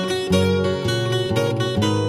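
Background music played on acoustic guitar, with plucked notes and strums.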